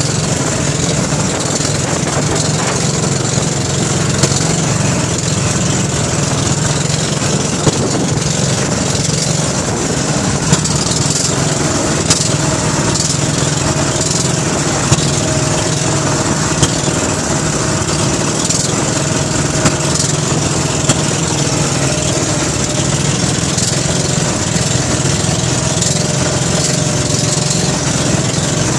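Outrigger boat's engine running steadily underway, with water rushing and splashing along the hull and a few sharp knocks as the boat meets the waves.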